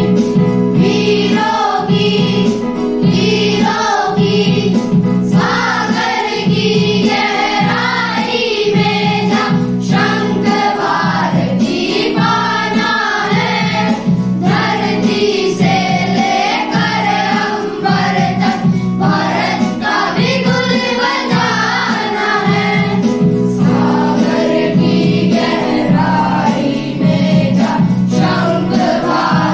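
A choir of boys singing a patriotic song together, with instrumental accompaniment and a steady beat.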